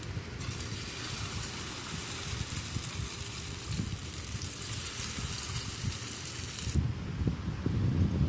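Wind rumbling unevenly on the microphone under a steady hiss; the hiss stops abruptly near the end.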